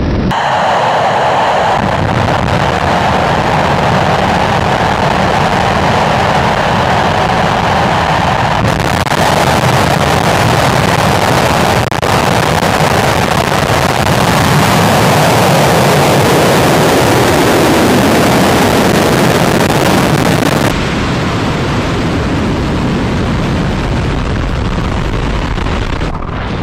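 Soyuz-2.1a rocket's kerosene-oxygen engines at liftoff and climb-out: a loud, continuous rush of exhaust noise. Its tone shifts abruptly about nine seconds in and again about twenty-one seconds in.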